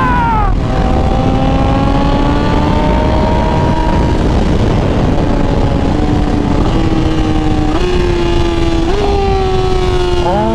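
BMW M1000RR's inline-four through a full titanium exhaust (Akrapovic headers, SC Project slip-on), ridden on the road. It opens with a falling rev, then the engine note climbs slowly and steadily under throttle. In the second half it jumps up in pitch three times in quick steps, then eases down.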